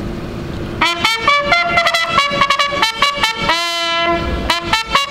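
Brass fanfare on trombones and other brass starting about a second in: quick short repeated notes, one long held chord near the middle, then more short blasts.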